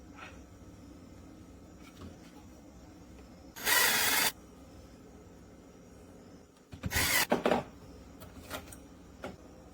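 An electronic keypad deadbolt's motor whirring twice, each run under a second and about three seconds apart, as it drives the bolt, with a few light clicks around them.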